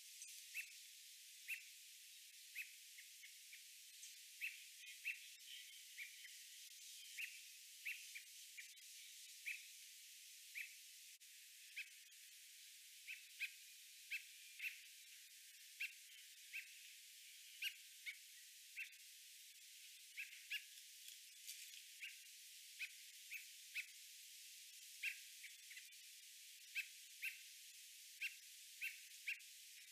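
American robin giving short, sharp alarm calls, a bit more than one a second at irregular spacing: warning calls to its fledglings.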